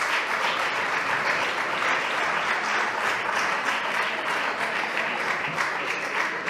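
Many people applauding in a large parliamentary chamber: a steady, dense clatter of hand claps.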